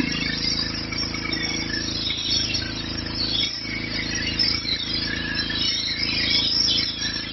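Petrol-engined pressure washer running steadily: a constant engine drone under the hiss and spatter of the high-pressure water jet striking stone patio slabs.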